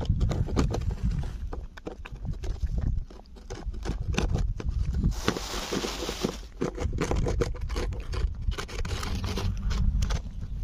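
A cat eating leftovers, its chewing making quick irregular crunching clicks over a low rumble. A brief hissy rustle comes about five seconds in.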